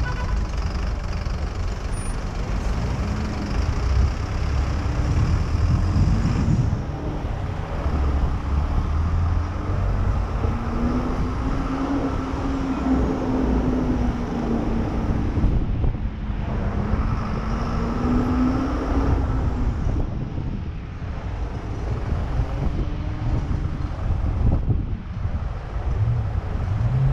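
Motorcycle riding through city traffic: a steady low wind rumble on the microphone over the engine's hum, which rises and falls in pitch about midway as the bike speeds up and slows.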